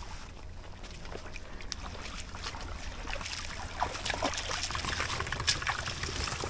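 Bare feet and the wheels of a loaded hand cart wading through a shallow, muddy puddle: splashing and sloshing water that grows louder as they go.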